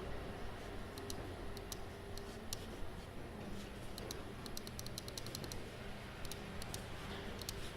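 Small-office room tone, a steady low hum and hiss, with a computer keyboard clicking in short irregular runs of typing, quickest about halfway through.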